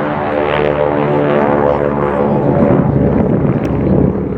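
Aircraft engine running as an aircraft flies over: a steady, many-toned hum that turns rougher and noisier about halfway through.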